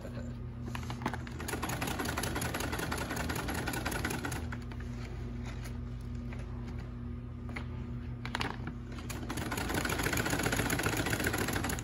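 Industrial sewing machine stitching sailcloth: a steady motor hum under a fast, even run of stitching that swells for the first few seconds and again, loudest, near the end.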